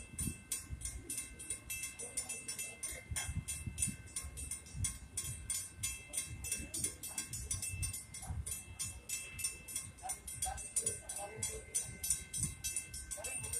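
Railroad grade crossing bell ringing rapidly and evenly, about four to five strikes a second, the warning that a train is approaching. A low, uneven rumble of road traffic lies underneath.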